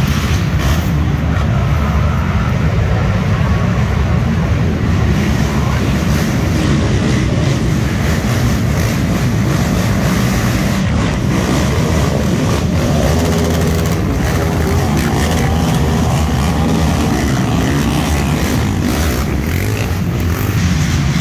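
Engines of racing ATVs running hard on a dirt course, several quads at once, making a loud, steady, low drone.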